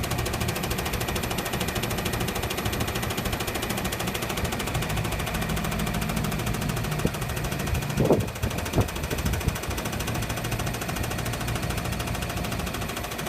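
Air conditioner outdoor unit running with an abnormal rapid, steady rattle, with a couple of louder knocks about eight seconds in.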